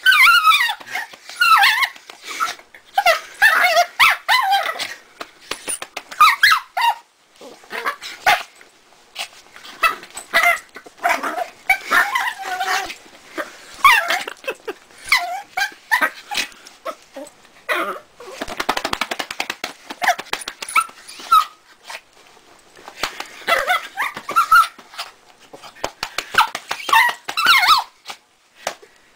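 Small dog making un-doglike screeching, squealing and growling noises while a hand wrestles with it: strings of short, high calls that bend up and down in pitch, broken by brief pauses. There is a harsher, raspier stretch about two-thirds of the way through.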